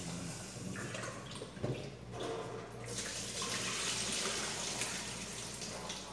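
Kitchen tap running into a rice cooker's inner pot as rice is washed, the water swelling louder about halfway through. A single knock a little under two seconds in.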